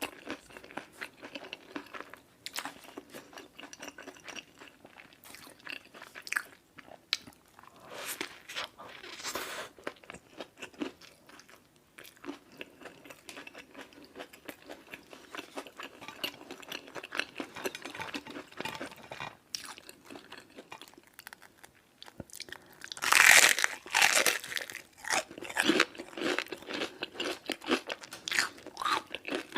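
Close-miked eating sounds: crunchy fried fast food being bitten and chewed, with a run of crackling chews. The loudest burst of crunching comes about 23 seconds in.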